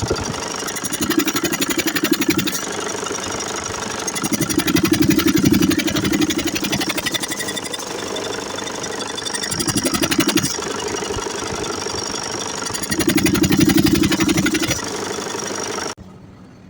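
Mercedes-Benz Actros MP4 truck's diesel engine running with a fast, even clatter. It swells louder four times, then cuts off suddenly near the end.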